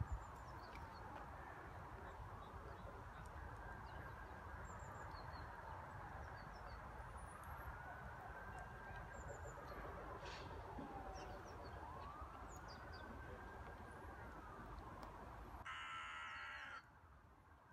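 Distant emergency-vehicle siren wailing, rising and falling slowly every few seconds over a steady hum of background noise, with faint bird chirps. A brief harsh call stands out near the end.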